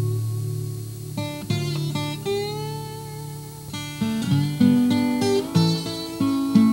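Background guitar music: a low chord rings out, then single plucked notes follow one after another from about a second in.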